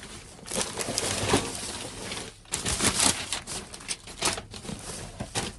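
Trash being rummaged through by hand: irregular rustling and clattering of discarded items being moved about.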